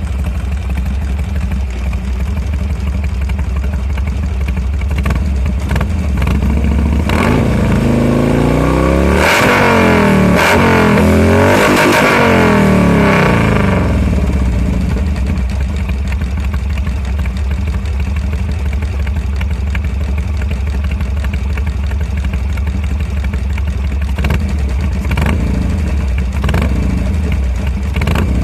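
Harley-Davidson Sportster 883 R's air-cooled V-twin running through a Red Thunder aftermarket exhaust: idling steadily, then revved up and down several times from about a quarter of the way in, settling back to idle, with a few short throttle blips near the end.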